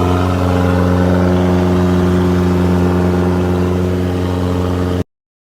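Combine harvester's diesel engine and machinery running steadily with a constant drone. The sound cuts off abruptly about five seconds in.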